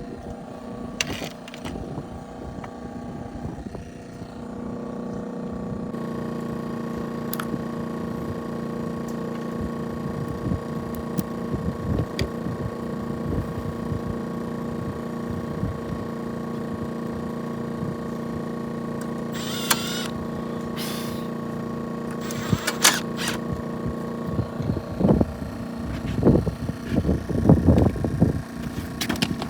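A motor running at a steady pitch, starting about six seconds in, with scattered clicks and knocks near the end.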